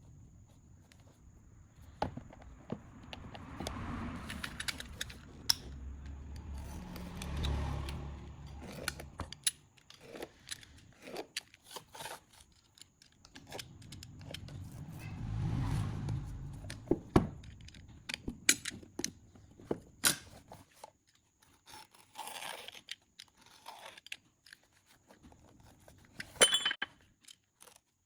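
Workbench handling noises: scattered clicks and taps of small hard parts, with two longer stretches of scraping and rustling, the first in the first half and the second around the middle.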